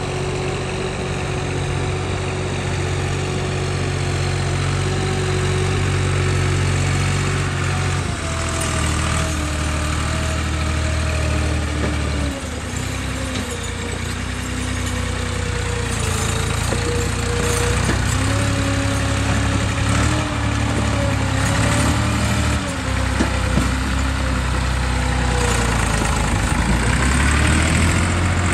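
Tractor's diesel engine running steadily, then revving up and down from about eight seconds in as it labours to haul a trolley loaded with bricks through deep mud.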